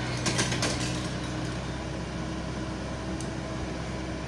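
Heavy diesel engine running steadily at low revs, with a few light clicks in the first second.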